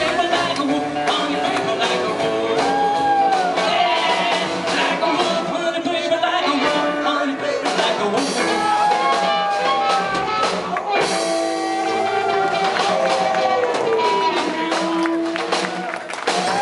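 Live bluesabilly band playing: a harmonica wailing with bent notes over upright bass and acoustic guitar.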